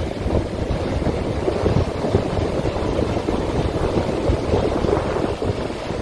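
Wind buffeting the microphone: a steady, gusty low rumble.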